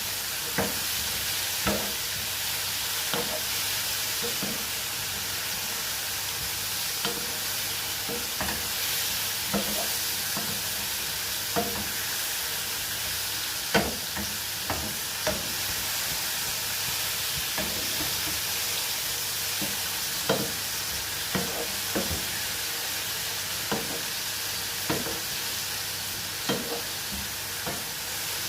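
Mushrooms sizzling in oil in a frying pan, a steady hiss, while a utensil stirs them, knocking against the pan every second or two.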